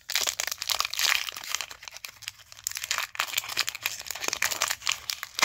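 Foil wrapper of a Pokémon TCG Unified Minds booster pack crinkling and tearing as it is handled and opened by hand, a dense run of crackles.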